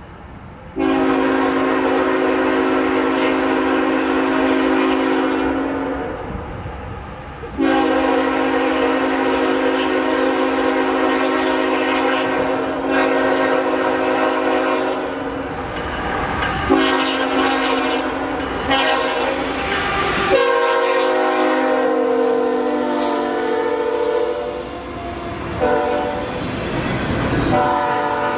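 CSX freight locomotive's multi-chime air horn sounding a series of long blasts for a grade crossing as the train approaches. The horn's pitch drops as the locomotive passes, about 20 seconds in, followed by the clatter of double-stack intermodal cars rolling by.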